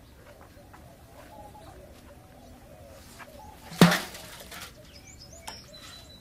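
A stainless-steel water pot hits the ground with a single loud clang about four seconds in, followed by a short ring and water splashing out. Birds chirp steadily throughout.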